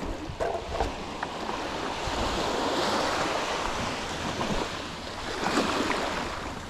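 Sea waves washing onto the shore: a rushing swell that builds and eases about three seconds in, then another shortly before the end.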